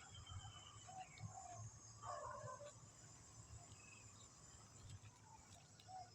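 Faint, scattered short bird calls over a steady high-pitched drone.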